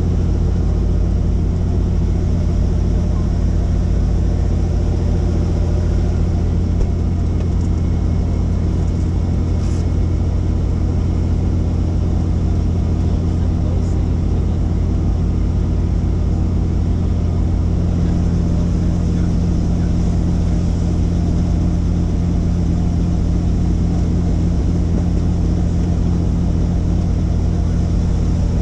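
Helicopter noise: a loud, steady drone of the rotor and turbine engine with a strong low hum. A slightly higher steady tone grows stronger about two-thirds of the way through.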